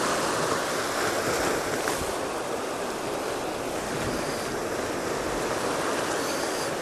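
Steady rush of sea surf washing against a rocky shore, mixed with light wind.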